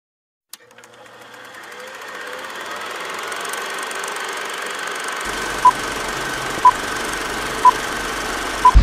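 Film projector sound effect: a click, then the reel projector running and fading in with a steady high whine. Near the end come four short beeps, one a second, like a film-leader countdown.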